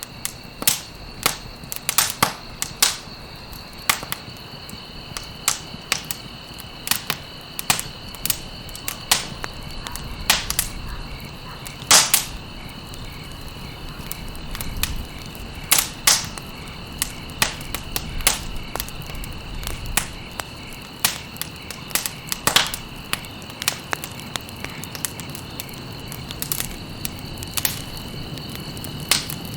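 Campfire crackling, with irregular sharp pops from the burning wood and stalks, one of the loudest about twelve seconds in. A steady high-pitched tone sounds behind the fire and stops shortly before the end.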